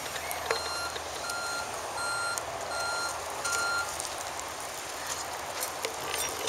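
Five evenly spaced electronic beeps, each short and steady in pitch, about three-quarters of a second apart, over steady outdoor background noise with faint rustling clicks.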